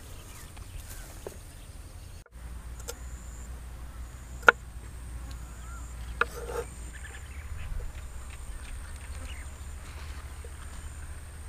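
Outdoor ambience: a steady low rumble with scattered light clicks and knocks, one sharp click about four and a half seconds in and another about six seconds in.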